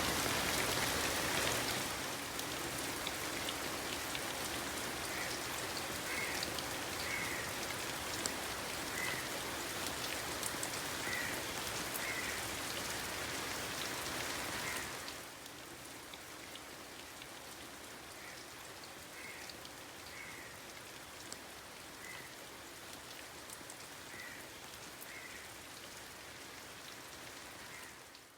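Steady rain falling, an even hiss of drops on surfaces, that steps down in loudness about two seconds in and again about halfway through. Faint short chirps come through every second or two. The sound ends abruptly.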